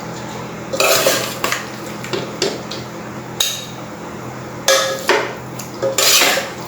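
Metal serving spoon scraping and clinking against a pan and plate while the cooked pork is dished out: a run of separate scrapes and clinks, some ringing briefly, with the loudest near the end.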